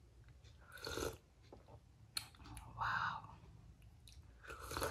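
Quiet eating sounds close to the microphone: a few short bursts of chewing and mouth noise, about a second apart, with a sharp click near the middle.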